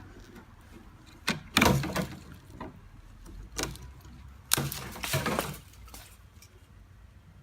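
A freshly sharpened cutting blade biting through a thick stick: a series of sharp wooden cracks and snaps, loudest about one and a half seconds in and again about four and a half seconds in.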